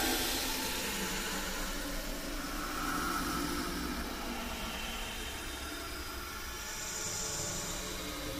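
Steady hissing noise that swells and fades gently, with no clear tone or beat.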